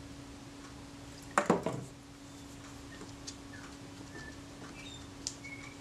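Small sharp clicks and taps of metal tools and small parts being handled on a workbench, a quick cluster of them about a second and a half in and a few lighter ticks later, with faint short squeaks of something being rubbed clean. A steady low hum runs underneath.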